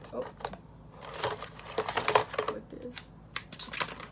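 Plastic false-eyelash cases and packs clicking and rattling against each other and the sides of a clear plastic storage drawer as it is tilted and handled, in a run of irregular clicks.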